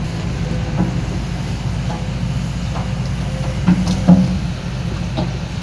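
Excavator's diesel engine running steadily under load, with a series of short metallic clanks from the working gear, the loudest about four seconds in.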